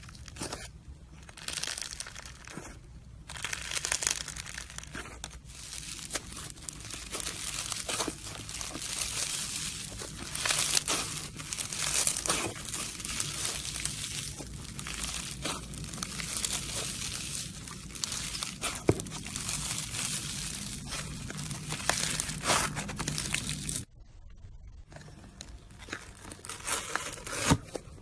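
Slime being squished and stretched by hand, making a dense run of small crackles and pops. About 24 seconds in it switches abruptly to quieter crackling.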